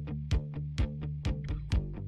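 Background music: a funky track with bass guitar and guitar over a steady beat of about two drum hits a second.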